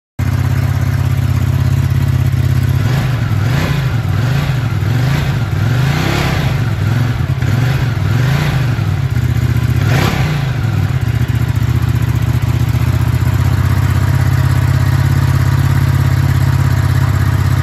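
Ducati Multistrada 950 S's Testastretta V-twin on its stock exhaust with a HealTech Exhaust Servo Buddy fitted, which holds the exhaust valve open. It idles, is blipped up and back down several times in quick succession from about three to ten seconds in, then settles back to a steady idle.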